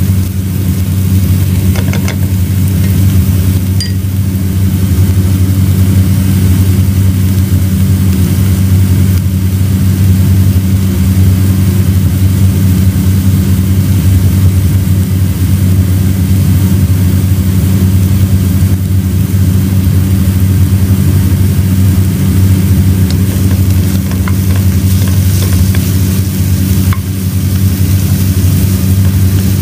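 Chopped onion and green pepper sizzling in a pot, stirred with a wooden spoon, with a few faint clicks of the spoon against the pot. A loud, steady low hum runs underneath and is the loudest sound.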